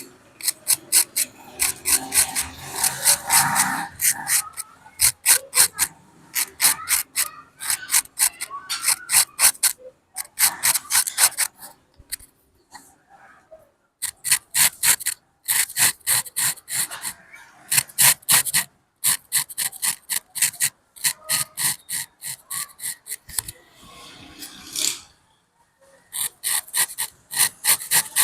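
Razor blade scraping hair off a scalp in quick short strokes, several a second, in runs broken by brief pauses.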